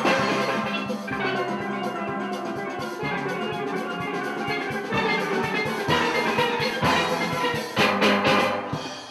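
Steel orchestra playing many steelpans together over a steady percussion beat, the pans' struck metallic notes carrying the melody and chords. A louder flourish comes about eight seconds in, and the band's level drops just before the end.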